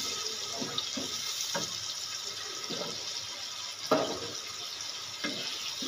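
Onion-tomato masala sizzling in a non-stick kadai on a gas stove, a steady hiss, while a wooden spatula scrapes through it in several short strokes. About four seconds in comes one sharper knock of the spatula against the pan, the loudest sound.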